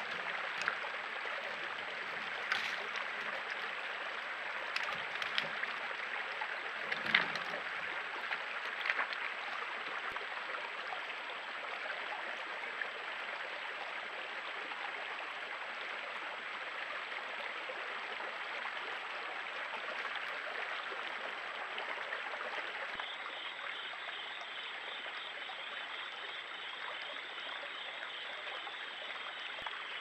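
Shallow creek water running and trickling over rocks, a steady rushing hiss. A few sharp clicks and small splashes sound in the first ten seconds, and a fast, pulsing high chirp joins about three quarters of the way through.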